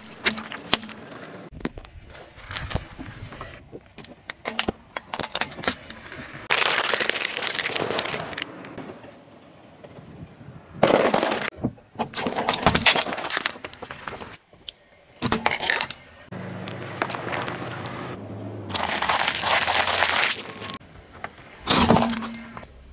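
Car tyre rolling over and crushing small objects, a string of separate crushes: sharp cracks and pops, some followed by a second or two of crunching and splattering, with water balloons bursting under the tyre near the start.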